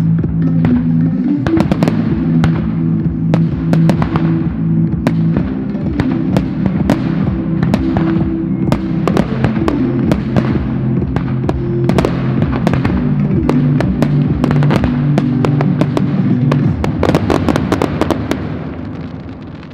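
Aerial firework shells bursting and crackling in quick succession, many sharp bangs, over music with sustained low chords. The bangs and music fade away over the last couple of seconds.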